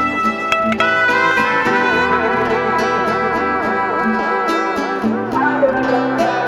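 Music playing through a car's JBL speaker system during an audio test: plucked guitar and a wavering, vibrato-laden melody over a steady bass line.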